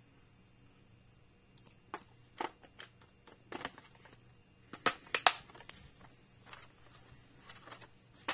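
Hard plastic toy parts clicking and knocking as clear plastic window pieces are fitted and snapped into a plastic playset frame, in scattered short clicks with the sharpest ones about five seconds in.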